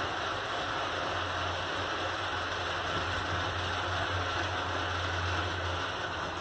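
Schindler passenger lift car travelling down: a steady rushing travel noise with a low hum underneath. The hum stops shortly before the end as the car comes to a halt at the ground floor.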